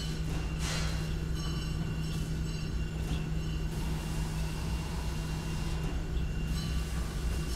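Steady low mechanical hum like running machinery, with a thin high whine held underneath and brief hissing swells about a second in and about three seconds in.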